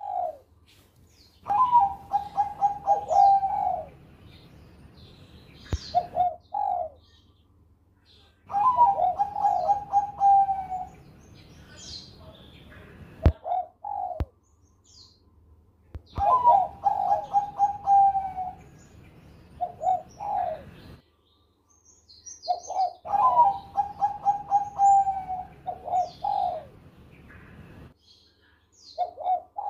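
Zebra dove of the Bangkok perkutut song line cooing. It gives four long phrases of quick staccato notes, about seven seconds apart, and each phrase ends with a short pair of closing notes.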